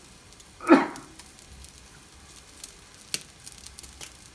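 Chicken yakitori skewers sizzling over charcoal on a grill, with scattered sharp pops and crackles from the fire. A brief, louder sound stands out just under a second in.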